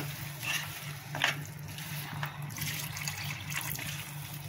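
Mutton stock poured from a bowl into a steel pan of masala-fried mutton, splashing as a spoon stirs it in, with a few short louder strokes of the spoon through the liquid.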